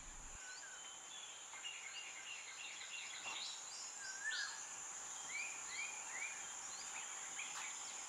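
Faint outdoor ambience of birds calling: many short chirps and whistles, some rising and some falling, over a steady high-pitched insect hum.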